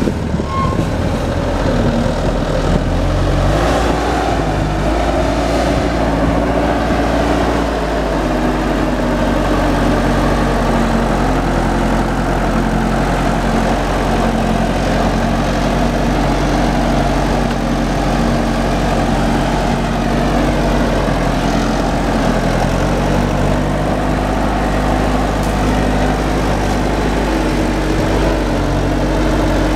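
Bobcat A300 Turbo skid-steer loader's turbocharged diesel engine running steadily while the machine drives carrying a heavy log on its forks. Its engine note shifts slightly a couple of times.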